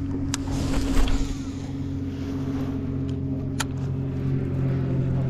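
Boat motor running with a steady low hum, with a few sharp ticks about a third of a second, a second and three and a half seconds in.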